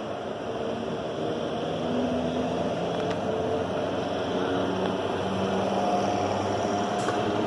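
MEMU electric train alongside the platform: a steady rumbling drone with humming tones that shift in pitch, growing a little louder about two seconds in.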